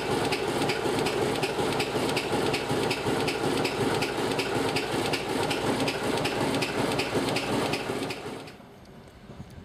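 Diesel engine of a DR class 107 (ČKD-built V 75) diesel locomotive idling steadily, with a regular rapid knock in its beat. A little after eight seconds in the sound drops away to a much quieter background.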